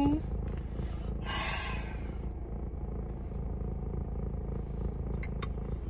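Steady low hum of a car idling, heard inside the cabin, with a brief hiss about a second and a half in and a few short clicks near the end while she drinks from a can.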